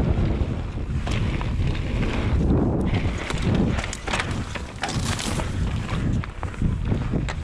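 Wind buffeting the microphone of a mountain bike's handlebar camera on a dirt-trail descent, under the crunch of knobby tyres on loose dirt and gravel. The bike clatters and knocks over bumps, most thickly through the middle and again near the end.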